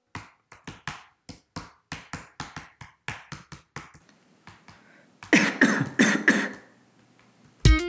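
A run of quick, sharp clicks, about four a second, then a man coughing several times into his fist.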